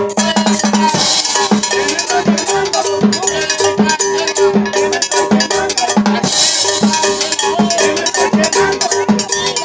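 Dance band music with cowbell and drums keeping a steady beat, with a cymbal crash about a second in and again about six seconds in.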